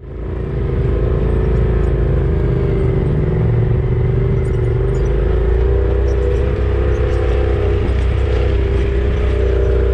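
UTV engine and drivetrain running steadily under way, with a slightly wavering whine and light rattling; the sound fades up from silence at the start.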